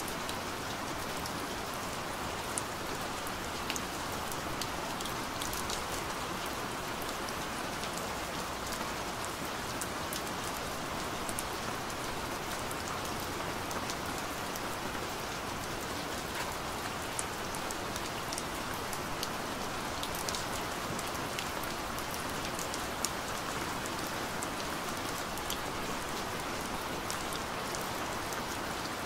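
Steady rain falling, a constant hiss with scattered sharp drop ticks.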